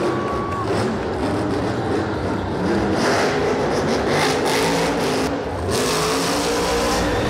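Grave Digger monster truck's supercharged V8 engine revving up and down as the truck wheelies and drives through the dirt.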